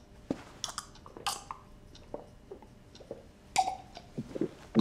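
Scattered soft knocks, clicks and short rustles of small objects being handled, about half a dozen, the loudest near the end.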